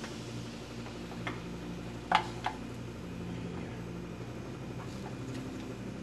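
Wooden spatula tapping and scraping against a nonstick frying pan while fried halloumi slices are lifted out: a few short sharp clicks, two of them close together about two seconds in, over a low steady hum.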